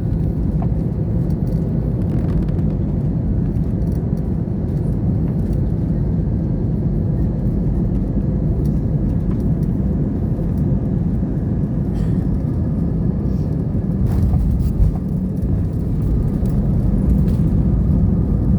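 Steady low rumble of an airliner cabin at the end of a flight, the engines and airframe heard from inside the plane, with a brief knock about fifteen seconds in.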